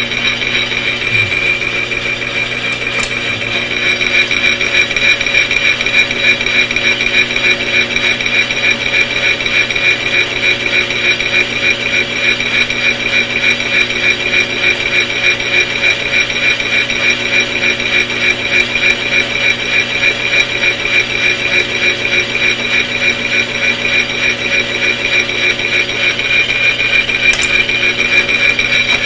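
Machine spindle running as a drill cuts a hole into a glass stern tube. It is a steady whine with a fast, even pulsing, and it grows a little louder about four seconds in as the bit bites.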